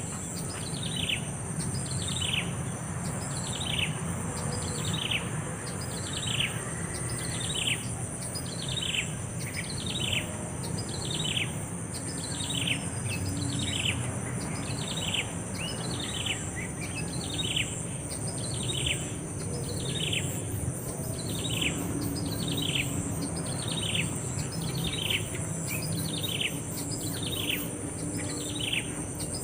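A bird repeating a short, down-slurred call evenly, a little more than once a second, over a steady high insect buzz.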